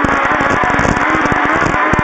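Rally-prepared Toyota Starlet with an 1800cc engine running hard at a fairly steady pitch, with many irregular low thumps under the engine note.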